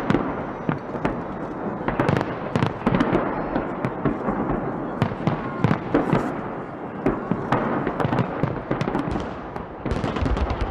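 Fireworks salute: many aerial shells bursting in quick, irregular succession over a continuous crackle.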